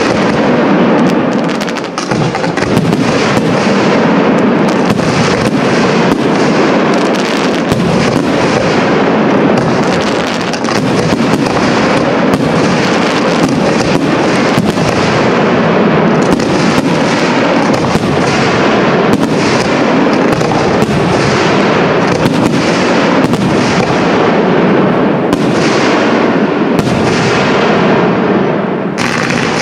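Aerial firework shells bursting in a dense, unbroken barrage, sharp bangs coming several times a second over a continuous rumble and crackle.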